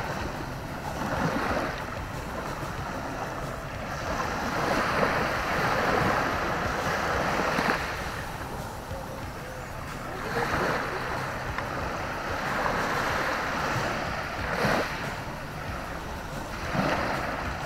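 Small waves breaking and washing up a sandy beach, the surf swelling and fading every couple of seconds.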